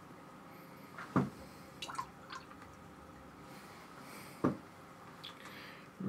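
Paintbrush dipped and rinsed in a jar of water: two sharp plinks about three seconds apart, each dropping quickly in pitch, with a few faint taps between them.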